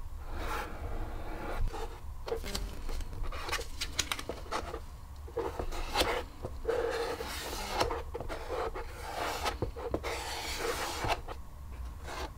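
Gloved hand spreading and feathering caulk over the seams of an EVA foam piece with a playing card: irregular soft rubbing and scraping strokes with a few light clicks.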